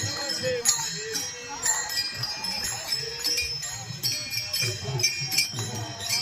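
Devotional procession music: drums beating a steady rhythm under loud metallic jingling, with voices chanting the name of Hari.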